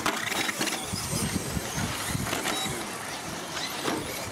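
Several 2WD radio-controlled short course trucks racing on dirt. Their motors whine high and shift in pitch as the throttle changes, over a steady rush of tyres on the track.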